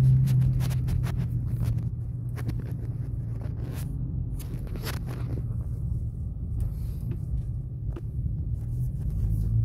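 Low steady rumble of an idling car engine, with scattered close rustles and clicks of handling near the microphone.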